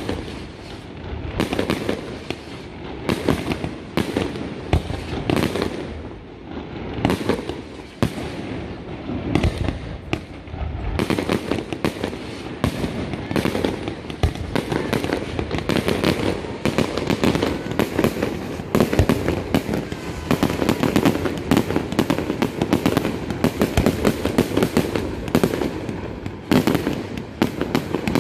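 Fireworks display: a continuous, irregular run of bangs, pops and crackles, sparser in the first part and packed almost without a break from about halfway through.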